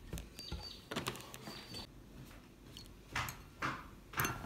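A fork beating eggs and milk in a ceramic bowl, with light knocks early on and a few short taps of the fork against the bowl in the second half.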